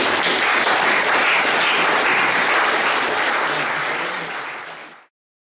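Audience applauding steadily at the close of a lecture, the clapping cut off abruptly about five seconds in.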